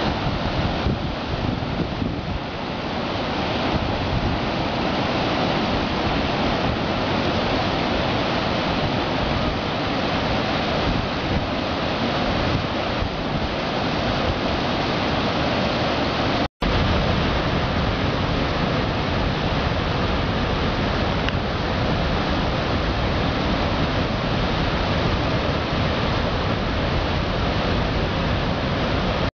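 Yosemite Creek rushing over granite cascades just above the brink of Upper Yosemite Falls: a steady, loud wash of white water. The sound cuts out for an instant a little past halfway.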